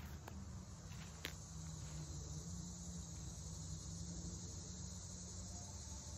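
Steady high-pitched chorus of insects trilling in the woods, with a single sharp click about a second in.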